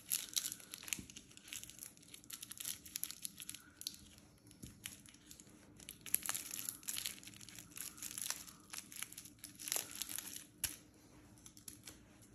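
Wrapped lollipops crinkling as a handful of them is gathered and shuffled in the hands: a run of quick, uneven rustles and crackles of the wrappers.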